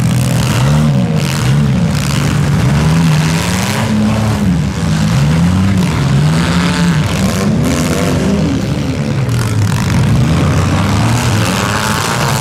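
Engines of several front-wheel-drive compact demolition derby cars revving up and down as they drive and ram each other, with short knocks and crunches of the cars colliding.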